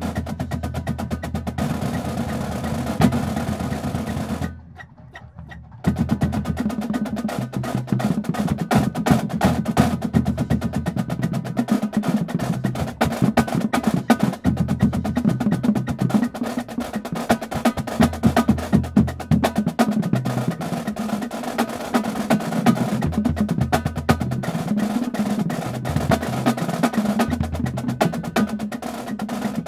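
Drumline of marching snare drums playing fast, dense strokes together. The playing stops about four and a half seconds in and starts again just over a second later.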